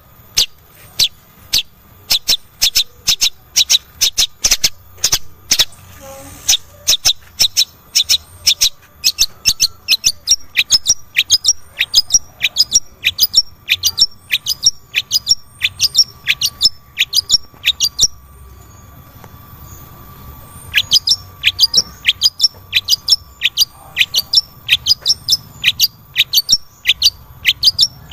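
Long-tailed shrike (cendet) calling in a fast run of sharp, downward-slurred notes, about two a second. It breaks off for a couple of seconds about two-thirds of the way through, then starts again.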